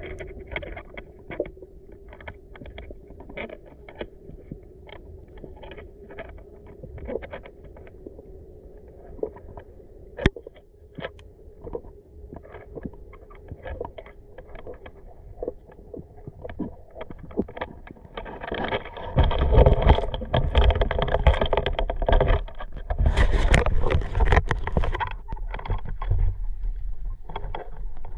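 Underwater sound picked up through a camera's waterproof housing: scattered sharp clicks over a faint steady hum, then, about two-thirds in, several seconds of loud rushing and rumbling.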